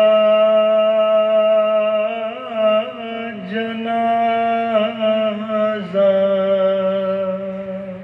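A single voice singing long held notes with a few brief ornamental turns, in the manner of a chant, fading out near the end.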